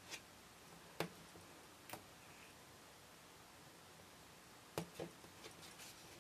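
Faint handling sounds: a few short clicks and taps, two of them close together near the end, with light rustling as fingers fold a small piece of paper-backed fabric on a cutting mat.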